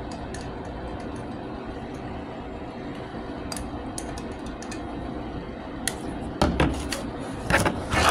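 Steady low room hum. From about six seconds in come a few sharp knocks and clatters of things being handled on a tabletop.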